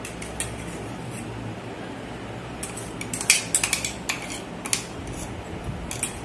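A spoon clinking and scraping against a bowl as garlic paste is scraped into a spiced marinade: a few scattered taps, then a quick run of them in the middle.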